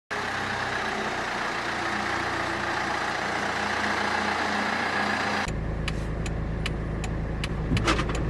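A car engine running, heard as a steady hum and road noise. After a cut about five seconds in, the engine sound turns lower and steadier, with regular sharp ticks at about two a second.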